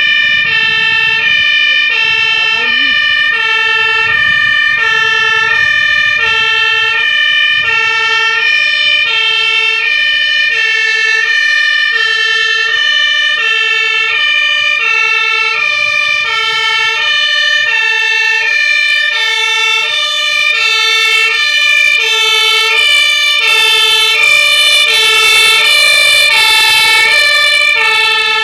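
German fire engine two-tone siren (Martinshorn) sounding continuously. It alternates evenly between a lower and a higher tone, each held a little over half a second, with a steady high tone underneath. It is loud and grows louder in the last several seconds.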